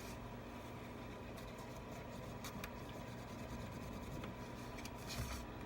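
Faint scraping and light clicks of a tool against an iPad frame as old screen adhesive is cleaned off, over a low steady hum, with a short scratchy scrape near the end.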